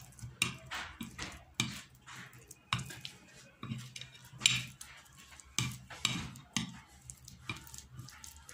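A metal spoon scraping and knocking against a plate as it stirs a sticky paste of mashed black soap, turmeric and honey, in uneven strokes about one or two a second.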